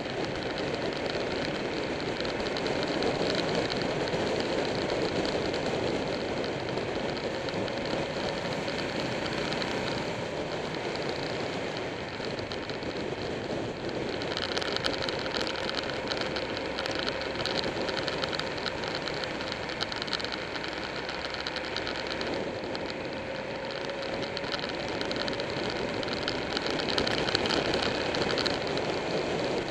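Motorcycle engine running at road speed under steady wind rush over the bike-mounted camera, its note drifting slowly up and down through the corners.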